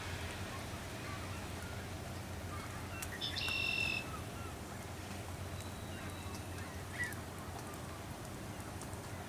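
A goose gives one short honk about three seconds in, over a steady low background noise with a few faint bird chirps.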